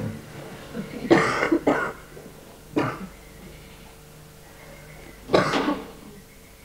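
A person coughing: a cluster of coughs about a second in, a single cough shortly after, and another cough near the end.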